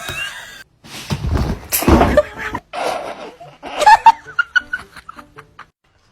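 A person laughing in irregular bursts, with short snickering sounds.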